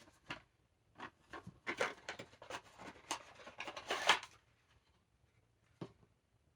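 A small cardboard box being opened and handled: a flurry of short clicks and crinkles for a few seconds, then one sharp click near the end.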